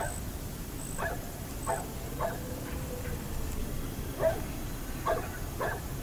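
Dogs barking in short yips, about seven times at irregular intervals, over a steady background hiss.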